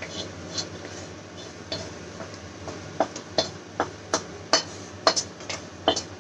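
A metal spoon scraping and knocking against a tilted pan as par-cooked rice is pushed out of it into a cooking pot. The sharp clinks start about halfway through and come about two or three a second.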